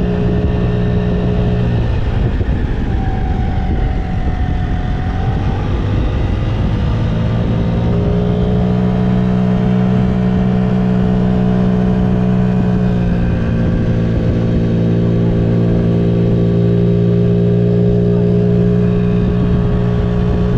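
Small 50cc scooter engine running hard under a steady throttle while ridden at speed. Its note sags for a few seconds near the start, then climbs back and holds.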